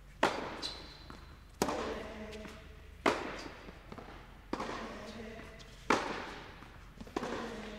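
Tennis rally: racket strikes on the ball, six in all, about one every second and a half, each echoing around an indoor tennis hall.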